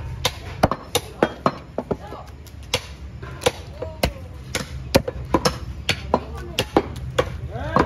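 Heavy butcher's cleaver chopping beef on a wooden chopping block: sharp, uneven chops, about two to three a second, with a short pause about two seconds in.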